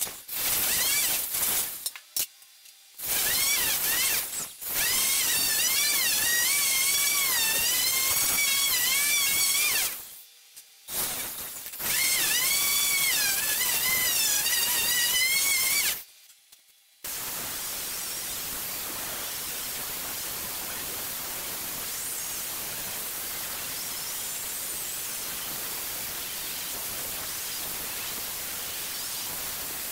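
Electric sander with 500-grit sandpaper working a steel machete blade: its motor whine wavers up and down in pitch as it is pressed and eased, in several passes broken by short pauses. After a brief silence about 16 seconds in, an angle grinder takes over on the blade with a steady, even grinding hiss.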